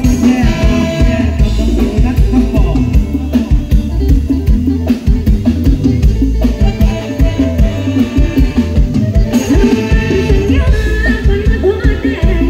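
A woman singing into a microphone with a live band, with a drum kit keeping a steady beat and a keyboard, all through the stage PA. The voice comes in phrases near the start and again in the last few seconds.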